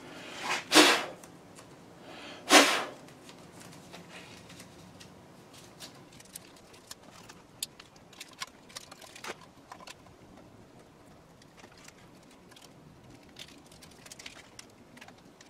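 Tape being pulled off the roll in two short, loud rips about two seconds apart, followed by scattered light clicks and taps of handling.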